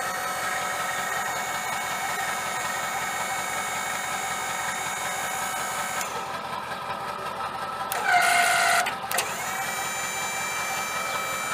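A 7.3-litre V8 turbo diesel engine running steadily at idle. A short, loud pitched tone sounds about eight seconds in, and a steady high whine begins just after.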